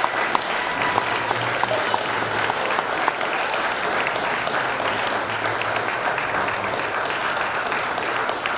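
A room full of guests applauding, a loud, dense patter of many hands clapping.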